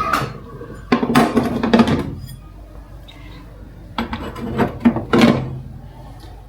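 Household items knocking and clattering as they are handled, in two bursts: one about a second in and another around four seconds in.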